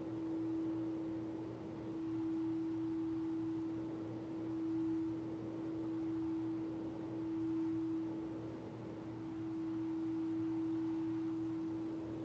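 Singing bowl sounding one sustained tone, its volume slowly swelling and ebbing every few seconds.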